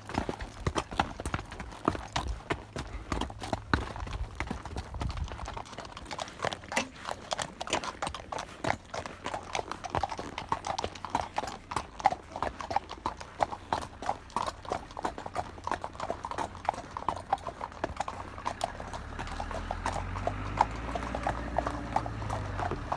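Horse hooves clip-clopping steadily on a hard road surface as the horses walk, a dense run of sharp hoof strikes. A low rumble sits under the hoofbeats at the start and builds again near the end.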